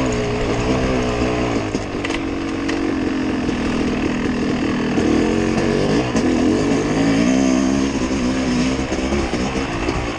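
Vehicle engine running under varying throttle while crawling over rocks, its pitch rising and falling, with a few short knocks about two seconds in.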